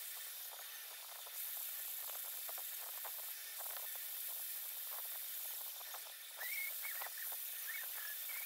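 Tattoo machine running steadily as a faint high hiss while it shades ink into skin. Short squeaky chirps come in from about six seconds in.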